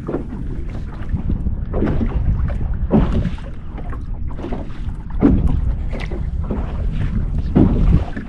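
Wind buffeting the microphone, a steady low rumble with several louder gusts, as a thunderstorm moves in.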